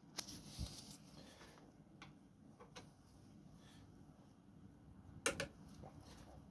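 Hand tools clicking and tapping on the front brake caliper bolts of a motorcycle: a few scattered sharp clicks, the loudest a quick double click about five seconds in.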